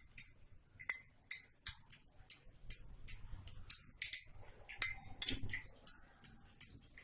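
A spoon stirring a tumbler of herbal decoction with honey, making light clinks against the sides about three times a second.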